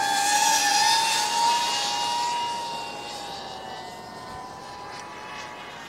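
FPV racing quadcopter's electric motors whining as it climbs away after take-off. The steady high whine rises a little in pitch in the first second, then fades steadily as the quad gets farther off.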